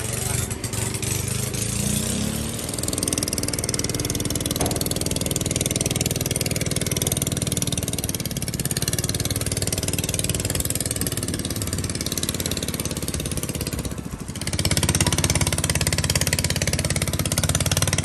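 Long-tail boat engine running steadily as it tows the floating raft back to shore, with a hiss of wind over it. It gets louder about fourteen seconds in.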